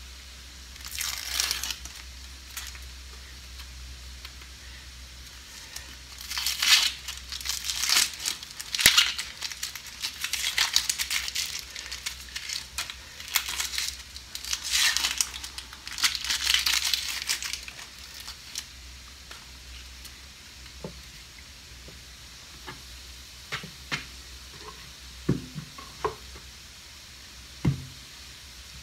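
Dry, papery skin of a red onion being peeled off by hand, crackling and tearing in bursts. Near the end come a few light knocks of a knife and onion on a wooden cutting board.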